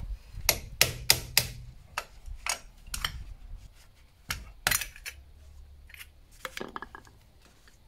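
Metal hand tools clinking and knocking against each other and on metal, about a dozen sharp clicks, most of them in the first five seconds, then fewer and fainter.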